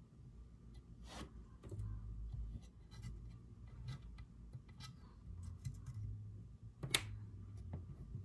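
Hands handling a stick-on plastic chassis protector sheet over an aluminium chassis plate: light scratching and rubbing with scattered sharp clicks, the loudest click about seven seconds in.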